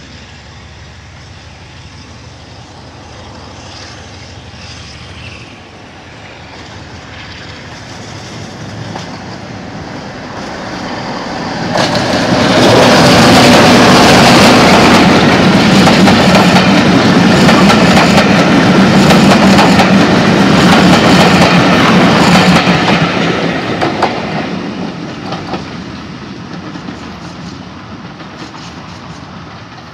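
Class 47 diesel locomotive 47376, with its Sulzer twelve-cylinder engine, and its train of coaches passing close by. The sound builds as the train approaches, is loud for about ten seconds with a steady engine note and wheels clicking over the rail joints, then fades as it draws away.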